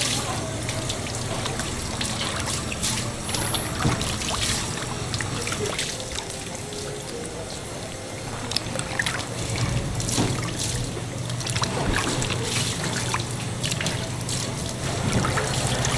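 Water sloshing, splashing and trickling in a washing tub as a giant octopus is scrubbed and rinsed by hand, with a steady low hum underneath.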